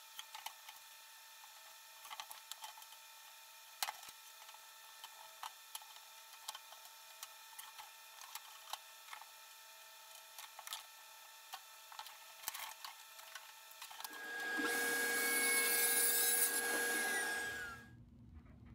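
Scattered light clicks and knocks of wooden trim pieces being handled and fitted. About fourteen seconds in, a power tool runs loudly for about three seconds, its pitch falling as it stops.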